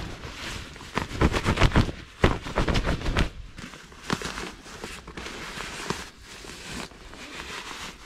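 Sleeping bag being stuffed by hand into its stuff sack: quick rustling and swishing of fabric in a string of pushes, loudest between about one and three seconds in, then quieter rustling.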